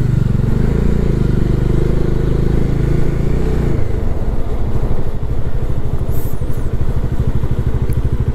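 Bajaj Dominar 400's single-cylinder engine running under way, then from about four seconds in dropping to low revs with a slow, even beat as the bike slows.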